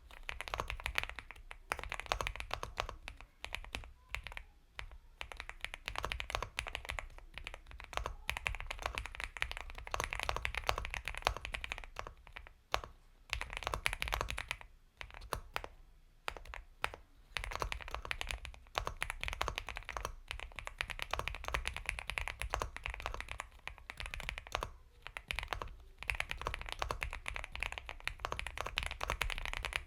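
Continuous fast typing on an Epomaker x Feker Galaxy 80 mechanical keyboard with Gateron Milky Yellow Pro linear switches: dense soft key clacks in runs, with brief pauses between bursts.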